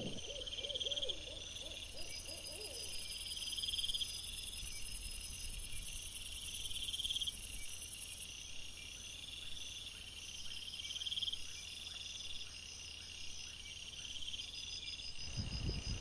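Crickets chirping in repeated high trills over a steady background hiss. Near the end, low rustles and bumps as an animal comes right up to the camera.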